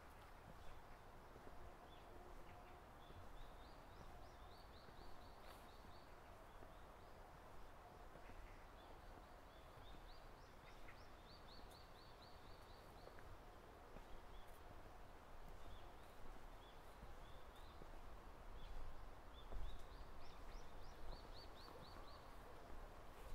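A songbird singing faintly in the forest, three short phrases several seconds apart, each a quick run of high repeated notes. Beneath it, quiet outdoor ambience with a soft low rumble and a few faint ticks.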